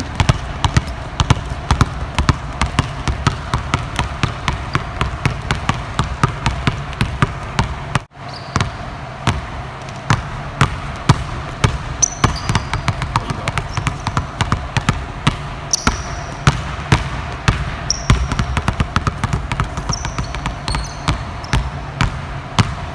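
Basketballs dribbled hard and fast on a hardwood gym floor, a rapid run of bounces echoing in the hall, at times two balls going at once, with a brief break about eight seconds in. A few short high squeaks, typical of sneakers on the court, come in the second half.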